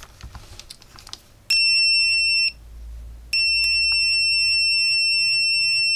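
Continuity buzzer of a CZDANG CZD 20D (TOOLTOP ET24D) desktop multimeter beeping as its probe tips are touched together. A steady high-pitched beep lasts about a second, then after a short break a second, longer beep carries on.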